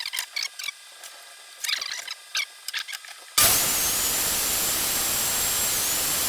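A few light knocks and clicks as the wood is handled. About three and a half seconds in, a power tool starts cutting a groove in a light softwood board: loud, steady noise with a high whine that dips briefly a few times under load.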